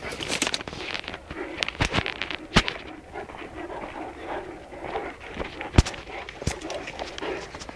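Great Dane making dog sounds close by, over footsteps on a stony dirt path: a run of crunches and clicks with several sharp knocks, the loudest about two and a half and nearly six seconds in.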